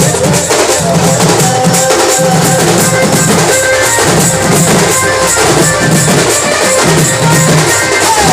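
Sambalpuri band music: drums beating steadily under a sustained melody line, with a short falling slide in the melody near the end.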